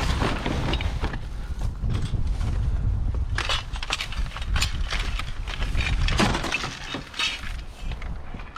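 Scrap junk being handled and broken apart by hand: a run of sharp clicks, clinks and cracks, thickest in the middle, over a low rumble.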